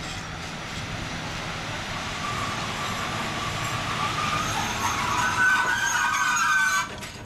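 EU07 electric locomotive passing close at low speed, its wheels rumbling on the rails, with a high-pitched metallic squeal from the running gear that grows louder in the second half and stops abruptly near the end.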